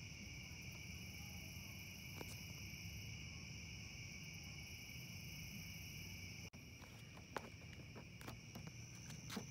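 Steady night chorus of insects, a continuous high trill in two pitches, with a few faint clicks and knocks in the last few seconds.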